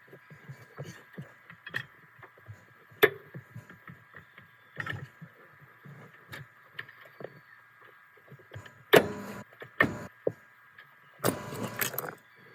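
Scattered clicks and knocks of hand tools on metal, with a sharp hit about three seconds in and short rattling bursts near the end, over a faint steady hum.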